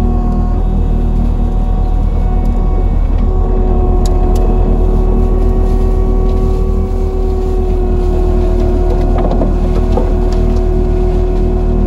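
CAT 299D3 compact track loader's diesel engine running steadily under load, heard from inside the cab, with the CIMAF hydraulic mulcher head spinning and grinding brush. A steady whine rides over the engine hum, with a few sharp ticks around four seconds and nine seconds in.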